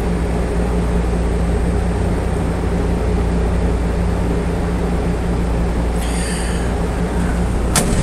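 Steady low mechanical hum, even and unchanging, with a single sharp click near the end.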